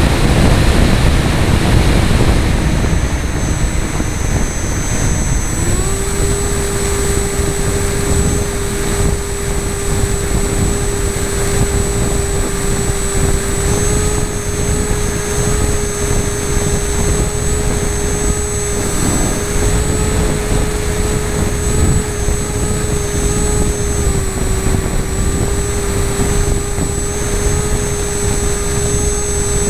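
Onboard sound of an FPV model airplane in flight: wind rushing over the microphone, with the whine of its motor and propeller. About six seconds in, the whine rises in pitch and then holds steady, shifting slightly now and then.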